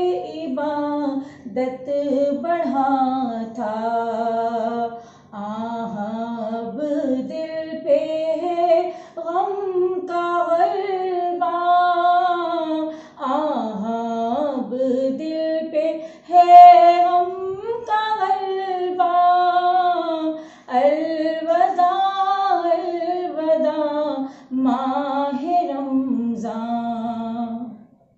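A woman singing solo without accompaniment, in long, flowing melodic phrases broken by short pauses for breath.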